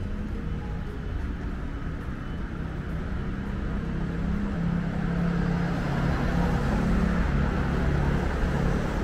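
City road traffic: cars passing with a steady low engine hum that grows louder through the second half.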